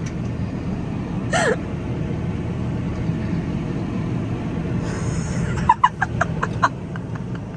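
Massey Ferguson 5S.145 tractor's diesel engine running steadily. A quick run of sharp clicks comes a little before six seconds in, and a brief voice-like sound about a second and a half in.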